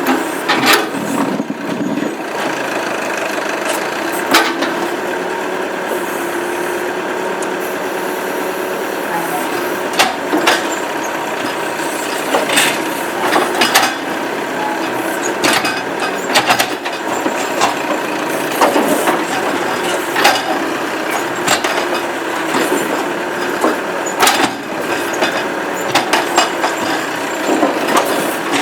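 Massey Ferguson 50A tractor-backhoe engine running steadily under a working load, with repeated sharp knocks and cracks at uneven intervals as the backhoe digs at a tree stump.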